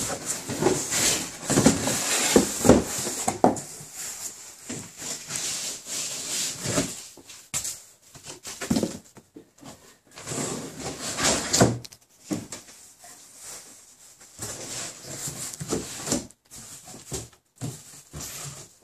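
Cardboard shipping box and its packing being handled: irregular rustling and scraping of cardboard flaps with occasional knocks, loudest in the first few seconds and again around ten to twelve seconds in, quieter toward the end.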